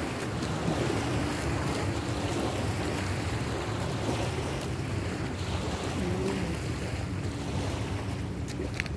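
Wind rumbling on the microphone over water lapping along a concrete river shore, with a faint steady low hum.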